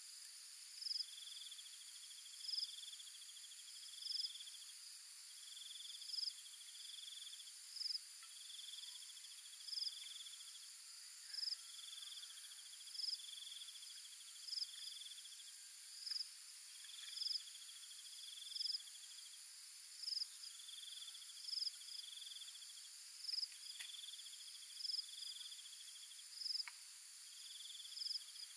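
Insects calling in a steady chorus: a high constant hum with a buzzy trill and a sharp chirp repeating about every second and a half. A few faint clicks come over it.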